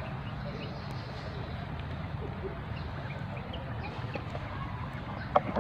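Outdoor ambience: a steady low rumble with a few faint high chirps, and one brief sharp sound near the end.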